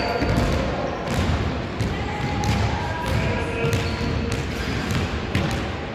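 Basketball thudding now and then on a wooden gym floor, with players' voices in the background, all echoing in a large hall.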